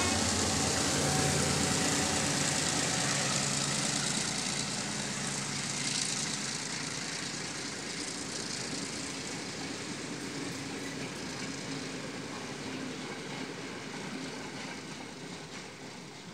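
A Sri Lanka Railways M2-class diesel locomotive's engine drones close by, followed by passenger carriages rolling along the track. The sound slowly fades as the train moves away.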